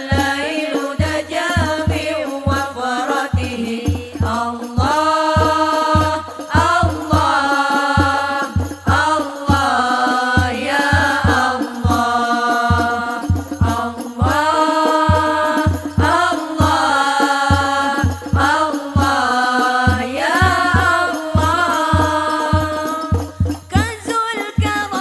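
Banjari ensemble playing Islamic sholawat: voices singing long, drawn-out melodic lines over a steady rhythm of deep frame-drum (terbang) strokes.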